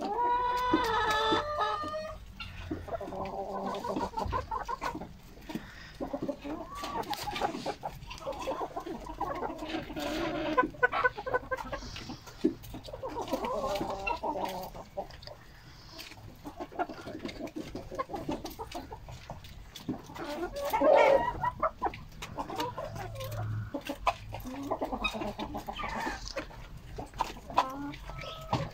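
Flock of hens clucking while feeding, with one loud, drawn-out call in the first two seconds and further louder calls around the middle and near the end.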